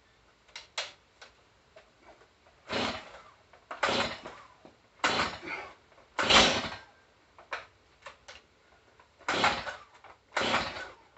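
Stihl MS 171 chainsaw being pull-started over and over: a series of short starter-cord pulls roughly a second apart, with a pause partway through, and the engine never catching. The owner says the saw gives him starting problems once in a while.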